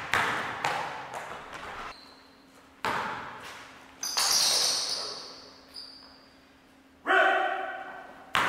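Basketball bouncing on a hardwood gym floor: a handful of separate hard bounces, each ringing and echoing around the gym, with a brief high hiss just after four seconds in.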